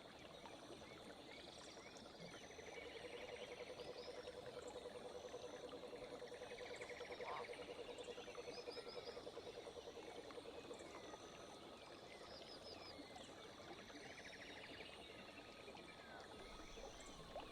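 Faint forest stream ambience: water running steadily, with a frog giving one long low pulsed trill from a few seconds in, lasting about seven seconds, while birds chirp in short repeated calls.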